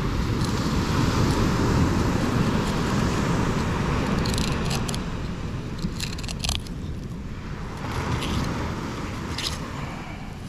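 A knife cutting a fillet from a tailor, with a few short crunching clicks, over a steady low rumbling noise.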